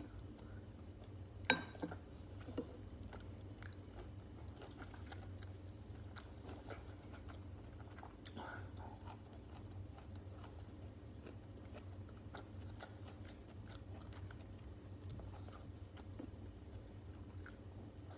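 Close-miked chewing of stuffed cabbage rolls: soft, wet mouth sounds with scattered small clicks, and one sharper click about a second and a half in. A steady low hum runs underneath.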